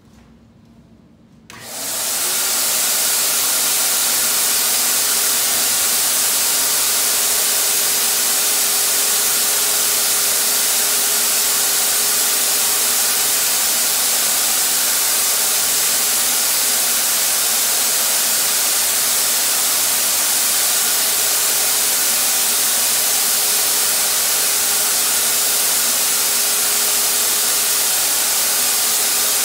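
Harbor Freight HVLP turbine sprayer switched on about a second and a half in: the turbine spins up within half a second, then runs at a steady loud air rush with a faint steady whine under it, as air and paint blow from the spray gun.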